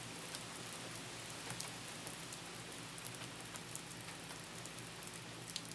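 Steady soft rain falling, an even hiss with faint scattered drop ticks.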